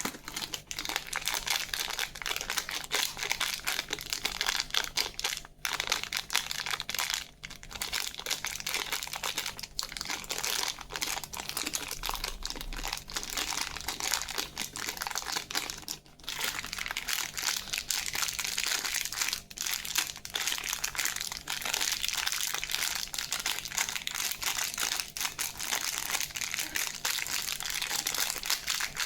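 Candy wrappers crinkling as lollipops and sweets are handled and unwrapped: a continuous crackle with a few brief pauses.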